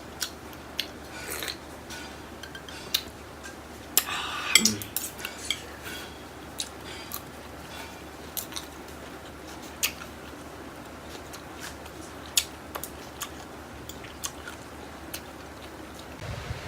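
Eating noodles with utensils: scattered light clicks and taps of utensils against a dish, with a short, louder noisy burst about four seconds in.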